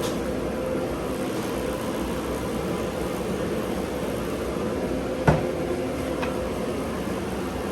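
Steady mechanical hum, the kind a fan or air-conditioning unit makes, with one sharp knock about five seconds in and a fainter click a second later.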